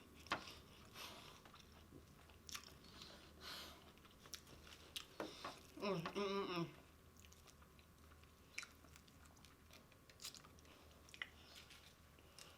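Close-miked chewing and biting of fried chicken wings: scattered small crunches and wet mouth clicks. A short vocal sound comes about six seconds in.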